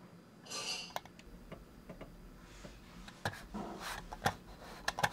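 A few sharp, irregularly spaced clicks of a computer mouse over quiet room tone, with a brief breathy hiss about half a second in.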